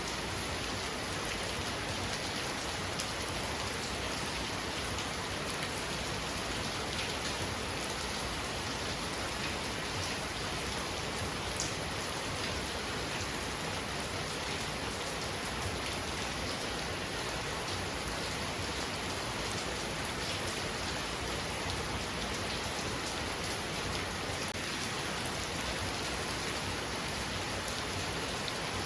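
Heavy rain falling steadily, a dense even hiss with the patter of drops striking surfaces.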